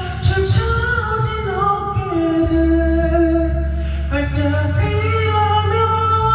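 Korean pop ballad playing: a voice holds long sung notes, sliding between pitches, over a steady bass line.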